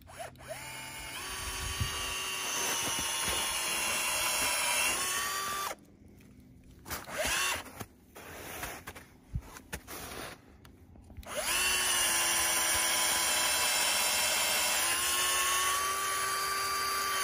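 SKIL cordless drill boring a tap hole into a red maple trunk for sap. The motor whines in two runs of about five seconds each, several seconds apart, its pitch creeping up as it spins.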